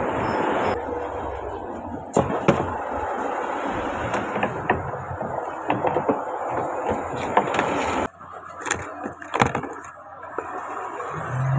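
Clicks, knocks and scraping of a tool working on a car side mirror's plastic backing plate and glass on a concrete bench, over steady street noise. The knocking thins out after about eight seconds, and a vehicle's engine hum rises near the end.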